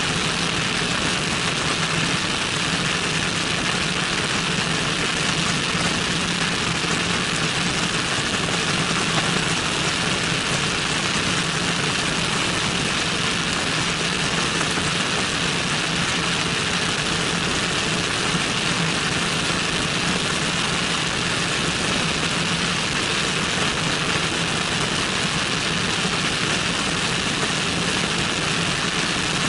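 Cessna 172N's four-cylinder Lycoming engine and propeller droning steadily in flight, heard from outside the fuselage with a strong, even rush of airflow over the microphone.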